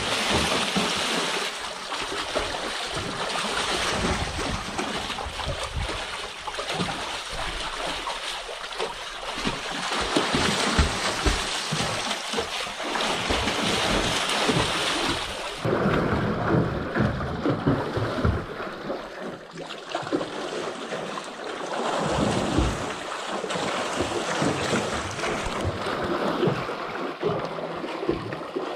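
Water splashing and churning as several people swim and thrash about in a small pool, a continuous rushing wash with irregular splashes. About halfway through the sound turns less hissy and fuller.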